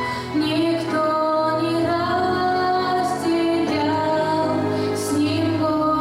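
Female voice singing a slow song in long held notes that step from pitch to pitch.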